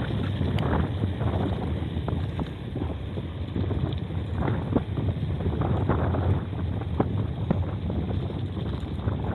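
Mountain bike rolling over a road of interlocking concrete paving blocks: a steady low tyre rumble with frequent clicks and rattles from the bike, plus wind on the microphone.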